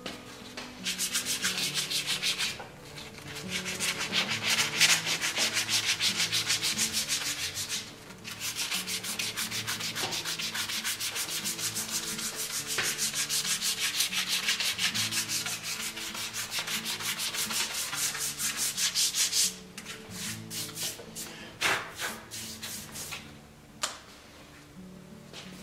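Sandpaper rubbed by hand over a carriage wheel's hard rubber tire, in rapid back-and-forth strokes. The strokes break off briefly twice, stop about three-quarters of the way through, and give way to a few scattered rubs.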